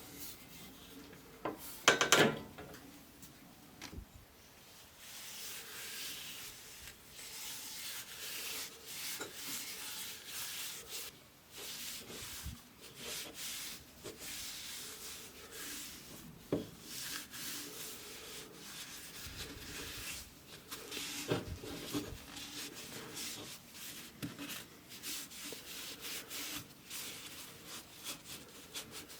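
Hand sanding of wood, sandpaper rubbed back and forth in irregular strokes. A sharp clatter, something hard set down or knocked, comes about two seconds in.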